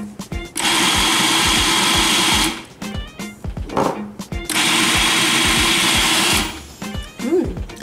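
Food processor running in two pulses of about two seconds each, its blade grinding soaked chickpeas and herbs toward a falafel paste.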